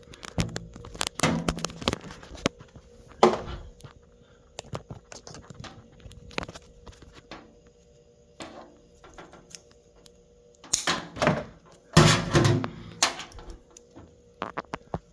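Unpacking handling noise: scattered knocks, clicks and rustling as a microwave and its packaging are handled. The loudest clusters come about three seconds in and again around eleven to thirteen seconds.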